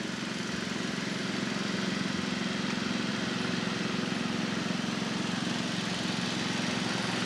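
A small engine running steadily, an even low drone that does not change.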